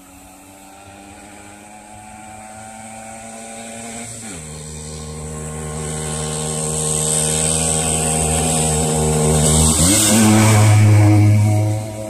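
Jawa 50 moped's small two-stroke single-cylinder engine approaching under hard throttle, growing steadily louder, with an upshift about four seconds in and another about ten seconds in. It is loudest as it passes close, then drops away suddenly near the end.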